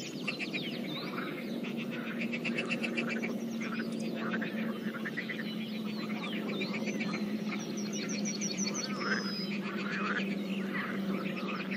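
Pond chorus of frogs calling in rapid pulsed trills and croaks, mixed with birds chirping, over a steady low hum.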